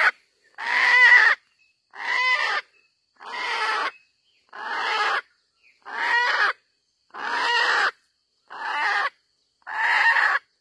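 Wild red junglefowl rooster calling loudly over and over, about eight harsh squawks evenly spaced a little over a second apart.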